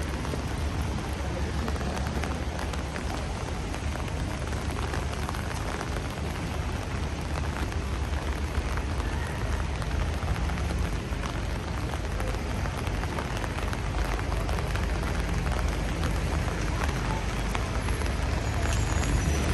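Steady rain falling on a city street, a dense hiss with many small drop ticks over a low rumble.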